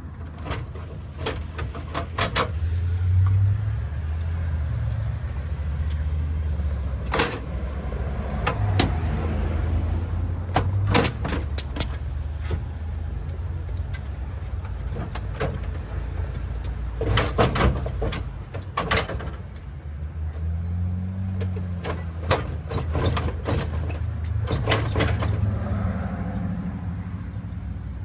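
Scattered knocks and clunks from work on a pickup's front bumper as it is being pulled off, over a low rumble that comes and goes.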